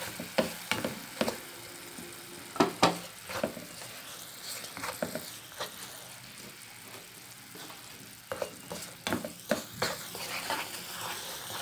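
Jaggery melting into syrup with ghee and a little water in a non-stick frying pan, sizzling steadily while a wooden spatula stirs it, knocking and scraping on the pan now and then, several times about three seconds in and again near the end.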